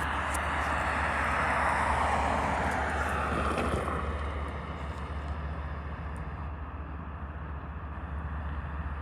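A vehicle passing close by: a rush of noise that swells over the first two seconds and falls away by about four seconds in, over a steady low rumble.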